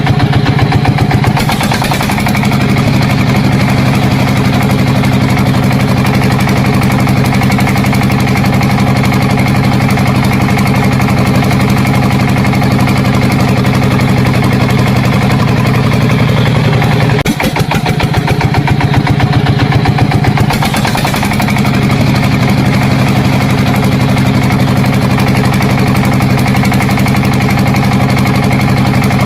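An engine running steadily at idle, with a short dip about seventeen seconds in before it settles back to the same steady running.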